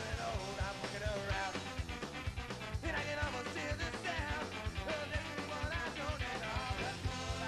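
Upbeat rock-style band music with a steady drum beat and a melody line.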